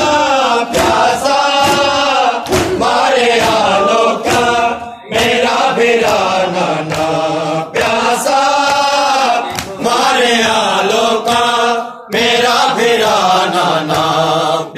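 A group of men chanting a Punjabi noha in unison, with a steady rhythm of open-hand chest-beating (matam) strikes under the chant.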